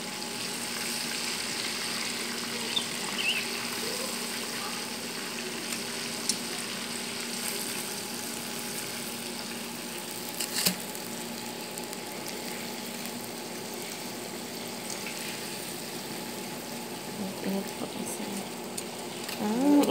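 Chicken pieces deep-frying in a pan of hot oil: a steady sizzle, with a sharp click about ten seconds in.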